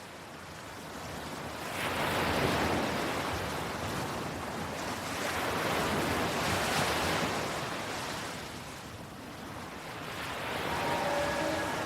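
Ocean waves: a steady rush of surf that swells and falls back every few seconds. Faint held tones come in near the end.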